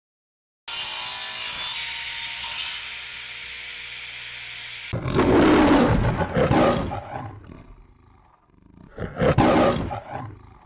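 Intro sound effects: a sudden noisy sound that settles into a steady hiss, then two roars parodying the MGM lion. The first roar starts about five seconds in and is the longer and louder; the second comes about four seconds later.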